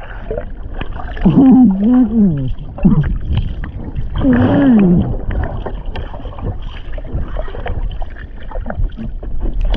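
Water sloshing and rushing around a person wading and swimming through a strong river current, with two drawn-out wordless groans about a second and four seconds in.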